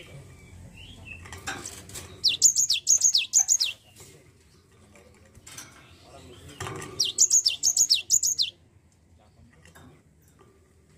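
Cinereous tit (gelatik batu) calling: two bursts of rapid, high notes, each sweeping downward, about five seconds apart, with soft knocks and rustles between.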